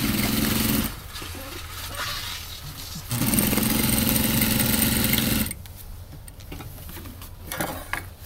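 Hakari industrial single-needle sewing machine running in two short bursts, stitching through layers of denim: the first less than a second long at the start, the second about two seconds long from about three seconds in, each a steady hum with needle clatter.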